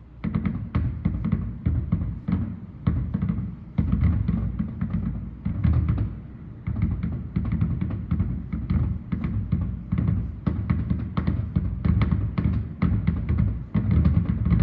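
Fireworks grand finale: a dense barrage of booms and cracks, several shells a second, starting suddenly and going on without a break.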